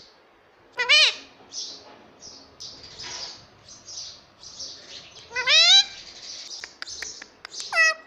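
Indian ringneck parrot calling: a short sharp call about a second in and a longer rising, meow-like call a little past the middle, with soft high raspy chirps between and a few small clicks near the end.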